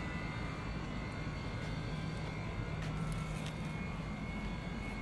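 A steady low mechanical drone, like distant engine noise, with a few faint ticks.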